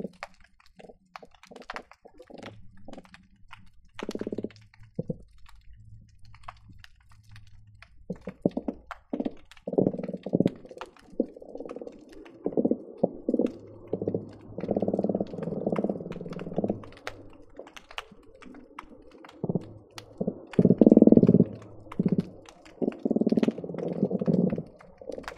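Croaker fish drumming underwater, heard through a hydrophone: low, rapidly pulsed croaks, a few at first, then many overlapping and almost continuous from about ten seconds in. Sharp clicks are scattered throughout.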